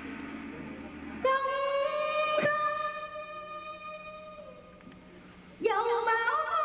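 Cải lương theatre music: a long held note comes in about a second in and fades away, with a single sharp strike partway through. Near the end a new, louder phrase of sliding, bending notes begins.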